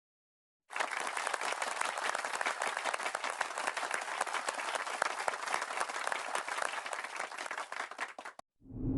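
Applause sound effect: a crowd clapping steadily for about eight seconds, starting abruptly and cutting off suddenly near the end.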